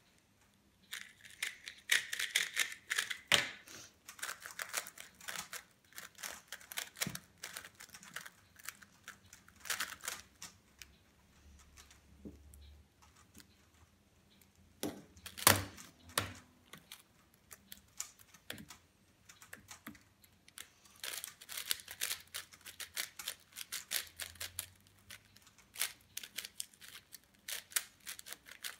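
Speed cubes being turned fast in turn: the 2x2 Cosmic Chuwen M, the Gan 356 X 3x3 and the Cosmic Wuque M 4x4, making dense runs of plastic clicks and rattles with brief pauses. There is one sharp knock about halfway through.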